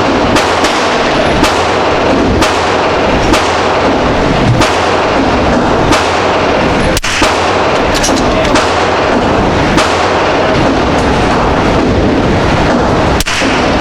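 Gunshots at a shooting range, sharp single cracks about every one to two seconds, over a steady loud rushing noise.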